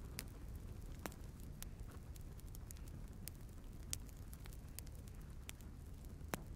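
Firewood burning in a stove's firebox: irregular sharp crackles and pops, the loudest about four seconds in, over a faint, steady low rumble.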